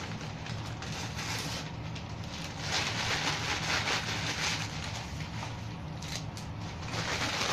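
Packing paper rustling and crinkling as it is handled, louder about three seconds in and again near the end.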